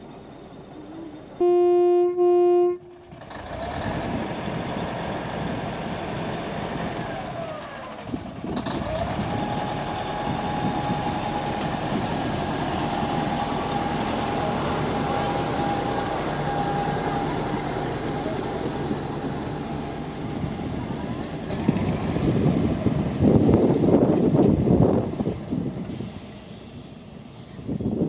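Diesel railbus horn sounding two short blasts, then the railbus running on the line with its diesel engine, a steady whine lasting several seconds in the middle and a louder rumble near the end.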